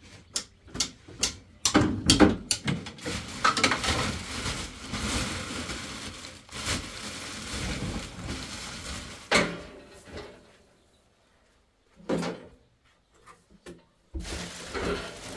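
Clicks and knocks of objects being handled, going over into a dense run of clattering, then stopping dead, with a single knock in the silence near the end.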